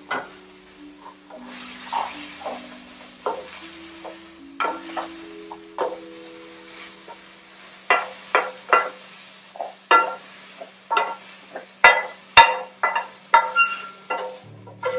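A wooden spoon scraping and knocking against a frying pan as cooked eggplant is tipped out into a bowl, the sharp knocks coming about twice a second and loudest in the second half. Soft background music with slow held notes runs underneath.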